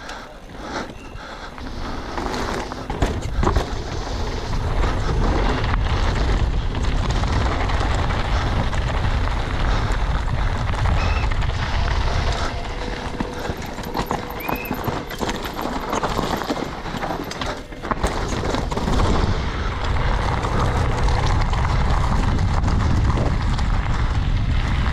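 Cube Two15 downhill mountain bike at speed, heard from a camera on the bike or rider. Wind rushes over the microphone and the tyres roll over dirt and then loose slate gravel, with knocks and rattles from the bike over bumps. It grows louder over the first few seconds as the bike picks up speed.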